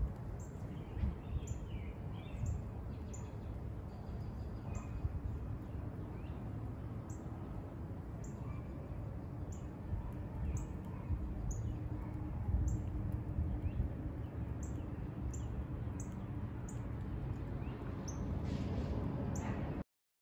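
A songbird repeating a short, high chip note about once a second over a steady low outdoor rumble.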